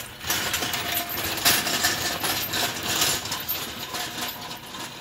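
Steel engine hoist rolling on its casters over a concrete driveway, its frame and chain rattling and clanking irregularly.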